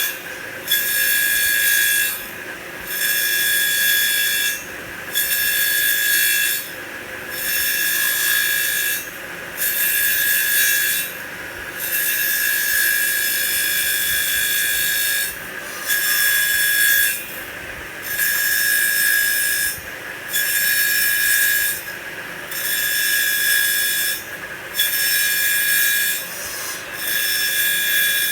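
CNC wood lathe cutting a spinning wooden blank in repeated passes: each cut is a hissing shave with a high whine, about a second and a half long, followed by a brief lull, roughly once every two seconds.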